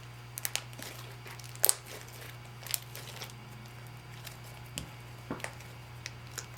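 Slime being squished and poked by hand, giving scattered short wet clicks and pops, the loudest a quick double pop about a second and a half in, over a steady low hum.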